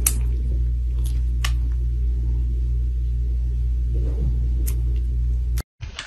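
Kitten purring: a loud, steady, low rumble, with a few small clicks.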